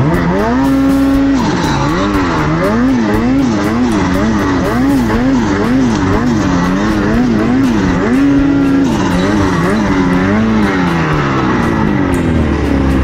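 Snowmobile engine revving up and down over and over, about twice a second, as the throttle is worked while riding through deep powder among trees. It holds a steady high rev about a second in and again around eight seconds.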